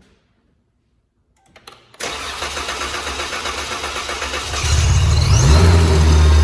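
Supercharged 2017 Dodge Charger 3.6-litre V6 on its first start after a Ripp supercharger install: a couple of small clicks, then the starter cranks with a regular pulsing for about two and a half seconds before the engine catches and settles into a louder, steady fast idle, with a rising whine about five seconds in.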